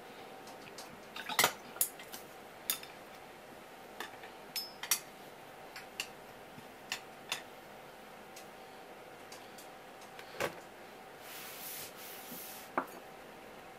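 Wooden chopsticks and a small ceramic bowl clicking and knocking on a wooden cutting board, a dozen or so light knocks at uneven intervals, with a short scraping rustle near the end as the bowl is slid across the board.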